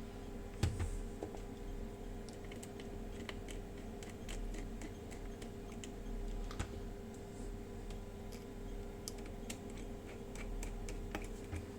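Irregular light clicks and taps over a faint steady hum.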